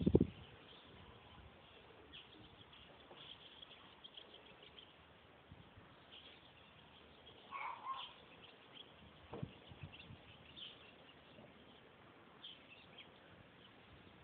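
Faint, scattered bird chirps over a quiet background, with a louder short call about eight seconds in and a soft knock just after.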